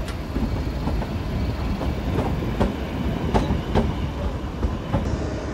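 Narrow-gauge mountain train running along the track, the coach wheels clicking irregularly over rail joints over a steady rumble.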